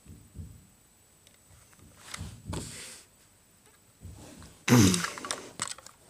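Hands handling a diecast toy car and its plastic packaging: scattered soft rubs and small clicks, with a louder rustle about three-quarters of the way through.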